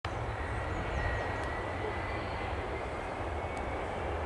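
Airbus A340-500's four Rolls-Royce Trent 500 turbofans at takeoff power during the takeoff roll: a steady deep jet rumble with a faint whine above it.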